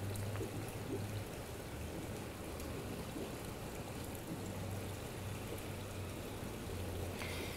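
Steady background hiss that sounds like rain or running water, with a faint low hum coming and going underneath.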